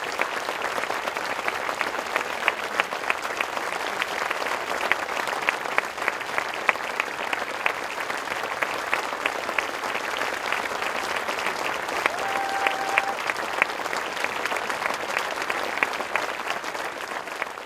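A large audience applauding, a dense steady clatter of many hands clapping, with one short steady tone about twelve seconds in.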